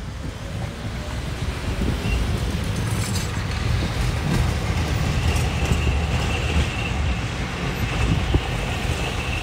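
Tram running past close by on street track: a steady low rumble of wheels on rails with a few light clicks, and a faint high whine from about two seconds in until near the end.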